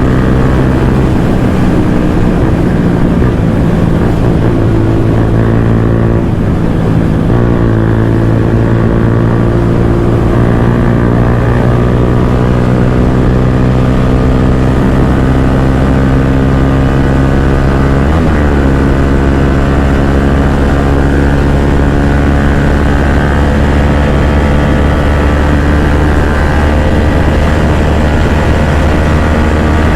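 Bajaj Pulsar N160's single-cylinder engine, breathing through an aftermarket full-system exhaust, pulling hard at full throttle. Its pitch climbs steadily, with a short break about seven seconds in and again about eighteen seconds in, at upshifts.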